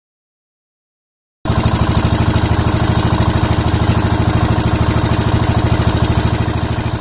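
A small engine running at a steady speed with a rapid, even pulse, starting abruptly about a second and a half in.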